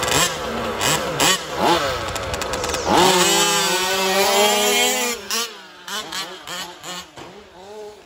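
Radio-controlled 4WD short-course race trucks' engines revving up and down as they race by. One truck passes close and loud about three seconds in, holding a steady high note for a moment before fading away.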